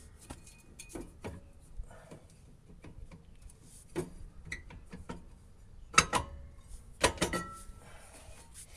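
Irregular small metallic clicks and knocks as the star-wheel adjuster of a rear drum brake is turned with a flathead screwdriver, a few clicks at a time; the loudest knocks come about six and seven seconds in.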